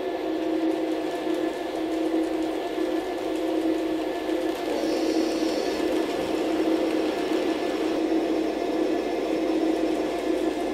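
HO-scale model train, a Tomix EF64 locomotive hauling 115-series cars, running on track with a steady whirring hum of motor and wheels. A faint high whine comes in briefly about five seconds in.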